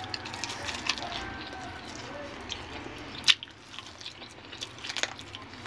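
Someone biting into and chewing pieces of braised chicken adobo with rice, with wet mouth clicks and smacks; one sharper click about three seconds in.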